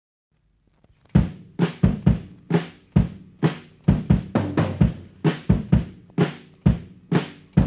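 Solo drum-kit intro of a groovy instrumental rock track: bass drum and snare hits in a steady repeating pattern, starting about a second in.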